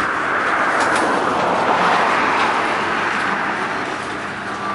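Covered hopper cars of a freight train rolling past on the rails: a steady rush of wheel-on-rail noise that swells about two seconds in and eases off toward the end, with a few faint clicks.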